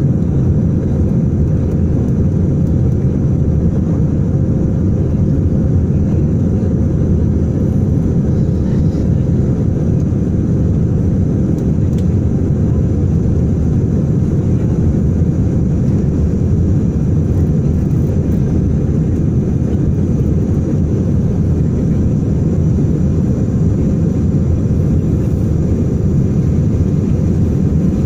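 Cabin noise inside an Airbus A319-100 climbing after takeoff: engines and airflow make a loud, steady, deep rush that does not change.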